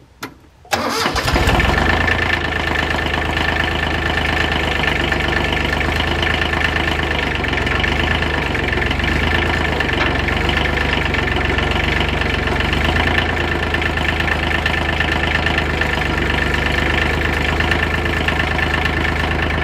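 A few clicks, then the Kioti LB1914 compact tractor's three-cylinder diesel starts under the starter within about a second and settles into steady running.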